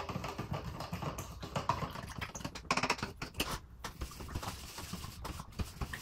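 A small stirring stick mixing watered-down black acrylic paint in a small cup, making a run of quick, irregular taps and scrapes against the cup's sides.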